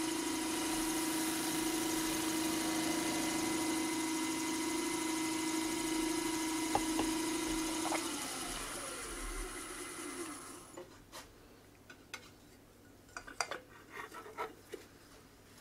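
Wood lathe running at high speed with a steady whine, a cloth rubbing wax onto the spinning yew vase. About eight seconds in the lathe is switched off and its pitch falls as it spins down, followed by a few light clicks and knocks of the metal wax tin being handled.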